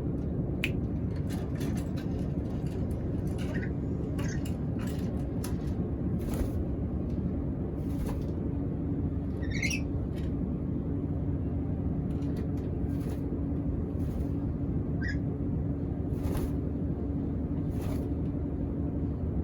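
Steady low rumble with a faint held hum, under scattered short clicks. Three brief high calls, likely from a black-capped lory, come a few seconds in, near the middle and about three-quarters of the way through; the middle one is longer and rises in pitch.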